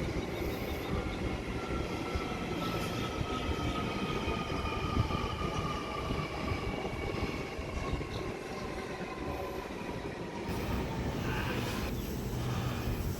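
Sydney Trains electric train moving through the station, with a steady rumble and a whine in several tones that slowly falls in pitch, as when the train slows on arrival. About ten and a half seconds in the sound changes, and the whine gives way to plainer rumble.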